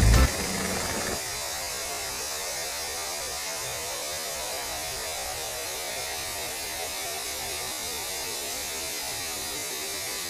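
Steady hiss with a faint hum.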